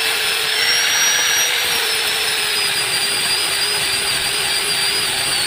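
Angle grinder fitted with a sanding disc running at speed, sanding a small wooden block: a steady high whine that wavers slightly in pitch as the load changes, over a rough sanding hiss.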